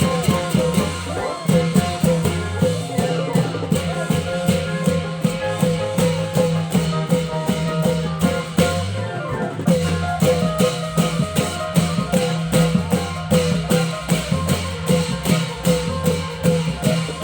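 Thai klong yao long-drum band playing: a fast steady drumbeat with a melody line held over it.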